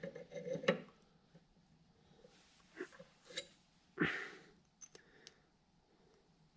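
Metal lathe change gears being handled: a few light clinks and taps of a steel gear, with brief rubs and handling noise between them.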